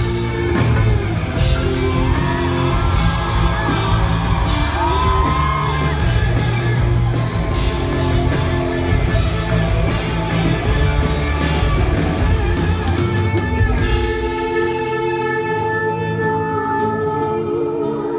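Rock band playing live in a large hall: guitars, bass and drums with singing and crowd yells. About three-quarters of the way through, the drums and bass drop out, leaving sustained guitar chords ringing.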